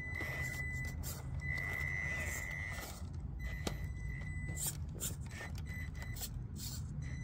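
Traxxas TRX-4M mini crawler's small electric motor and geared drivetrain whining in on-off spurts as it crawls over rock, with scattered clicks and scrapes of the tyres and chassis on stone.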